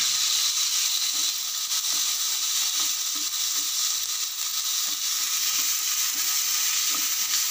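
Chopped onion, capsicum and freshly added tomato sizzling steadily in hot mustard oil in a frying pan, stirred with a wooden spatula that gives faint light knocks against the pan.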